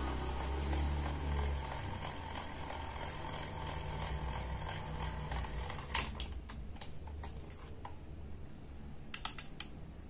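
A small battery-powered toy kitchen appliance's motor hums, loudest in the first two seconds and fading out, then hard plastic toy pieces click and tap sharply several times as they are handled.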